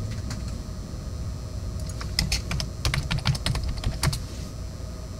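Typing on a computer keyboard: a quick run of key clicks starting about two seconds in and lasting about two seconds, over a steady low background hum.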